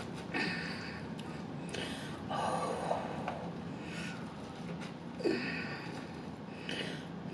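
A person eating barbecued meat close to the microphone: chewing and wet mouth sounds, with breaths through the nose and a short hum falling in pitch about five seconds in.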